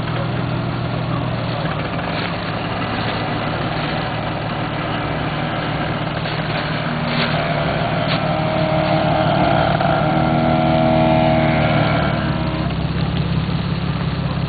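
Jeep Cherokee engine pulling under load as it crawls forward through brush, growing louder and straining from about eight seconds in before easing off near the end. A few short cracks come through in the first half.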